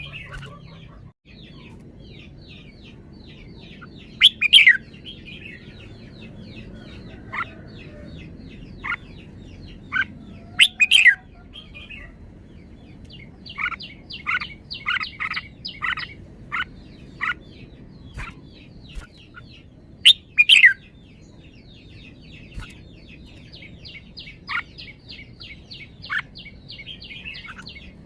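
Red-whiskered bulbul chirping and singing: a running series of short high chirps, about three or four a second. Louder song phrases break through about four, eleven and twenty seconds in.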